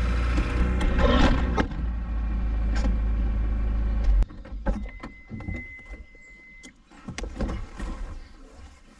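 Honda CR-V engine running with a steady low hum, cut off abruptly about four seconds in. Then come quieter clicks and knocks, with a steady high beep lasting about two seconds.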